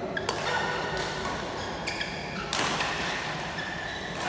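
Badminton rally: several sharp pops of rackets striking the shuttlecock, with short high squeaks of shoes on the synthetic court floor between them, echoing in a large hall.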